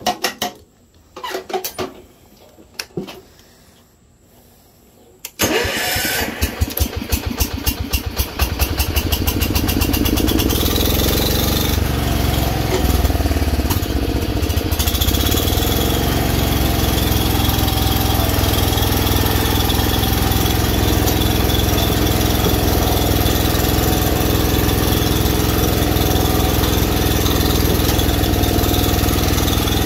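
1974 John Deere 112 lawn tractor's single-cylinder Kohler engine cold-started: a few clicks of controls, then about five seconds in the starter cranks it, it catches within a few seconds and settles into steady running.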